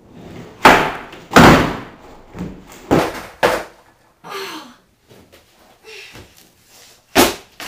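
Skateboard slapping and clattering on a plywood floor as the skater bails and falls: two loud hits in the first second and a half, two more around three seconds in, and another sharp hit near the end.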